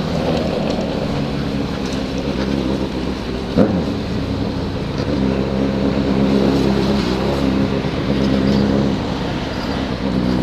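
Motorcycle engine running steadily under way, its pitch shifting a few times, with one short louder burst about three and a half seconds in.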